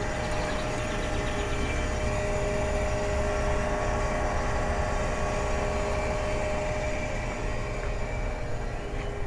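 Luxaire Acclimate Series heat pump outdoor units running in cooling mode: a steady compressor hum with a few held tones under the rush of the condenser fan.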